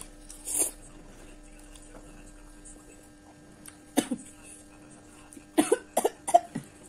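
A woman slurps a forkful of noodles once near the start, with a sharp click about four seconds in. Near the end comes a quick run of five or six short coughs as the chili heat of the spicy noodles catches her throat.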